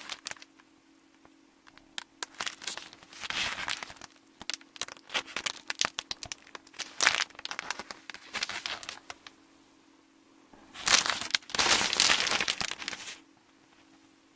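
Close-miked crinkling and crackling in irregular bursts, with a longer, louder stretch about eleven seconds in.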